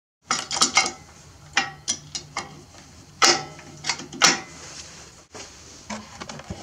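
Sharp metal clicks and clinks of a steel winch hook being handled and fitted onto the winch cable's end at the roller fairlead. There is a quick cluster near the start and a few more about three to four seconds in.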